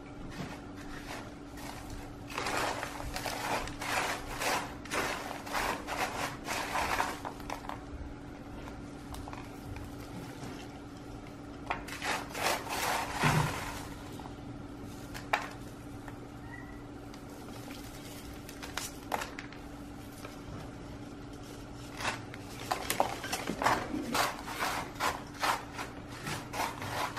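Orchid bark potting mix crunching and scraping as it is pressed and settled by hand into a terracotta pot, in three spells of rapid scratchy rustling with a few single clicks between. A steady low hum runs underneath.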